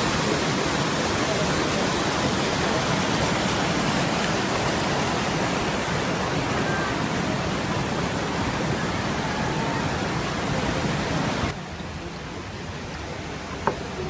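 Waterfall and white-water rapids rushing: a steady, dense roar of falling and tumbling water that drops off sharply about eleven and a half seconds in, with a single short click near the end.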